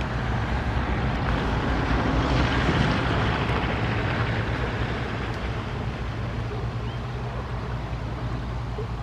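Water sloshing and splashing around a net being worked by hand in shallow lake water, swelling about two seconds in, over a steady low engine hum.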